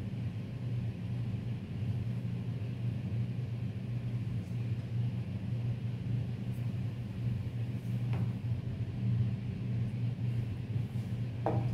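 Steady low hum with no speech, and a faint click about eight seconds in and another near the end.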